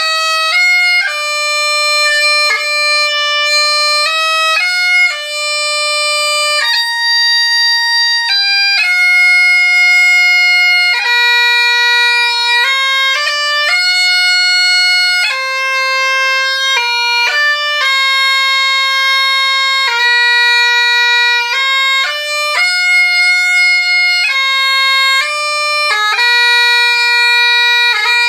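Bagpipes played as a melody on the chanter: loud reedy notes held a second or two each, stepping up and down with quick breaks between them, with no steady drone tone underneath.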